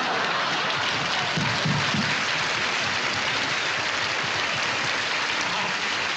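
Large audience applauding steadily in a dense, even clatter of clapping.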